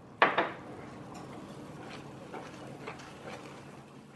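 Water bubbling in a stainless steel pot with an egg poaching in it, with one loud sharp knock about a quarter of a second in and a few faint ticks later.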